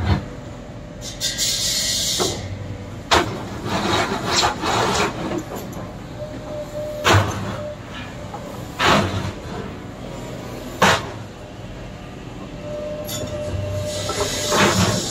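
Cat excavator's diesel engine running under hydraulic load as it moves its Rototilt-equipped bucket, with short hydraulic hisses and a thin whine at times. About six sharp metallic clanks are spread through it, from the bucket and tiltrotator as they move and shift.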